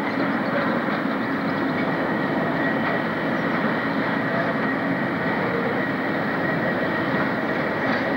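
Diesel shunting locomotive moving slowly with a train of goods wagons: a steady mix of engine and wheel noise with a thin, steady high whine over it.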